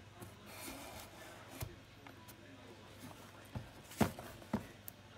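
A cardboard box handled and turned over on a wooden workbench: a scraping rub of cardboard early on, scattered light clicks, then two sharp knocks about four seconds in as the box meets the bench.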